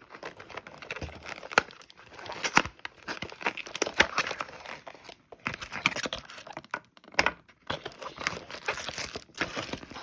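Packaging crinkling and tearing as an electric nail drill handpiece is unwrapped, with irregular rustles and sharp clicks throughout.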